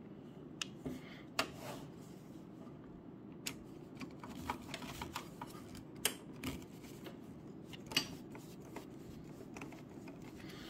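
Hand screwdriver working machine screws out of a NAS's sheet-metal back plate: scattered, irregular small clicks and scrapes of the metal bit on the screw heads and chassis, over a faint steady low hum.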